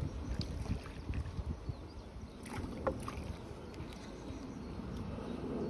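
Wind buffeting the microphone with a steady low rumble, and a few small splashes of a hooked fish struggling at the surface, clearest about two and a half to three seconds in.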